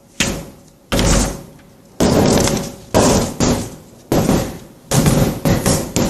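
A series of loud knocks or bangs, roughly one a second and unevenly spaced, each ringing out briefly in a reverberant room. A faint steady hum runs underneath.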